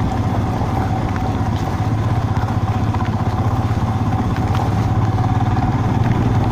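Royal Enfield Himalayan motorcycle's single-cylinder engine running steadily while under way, a constant low hum.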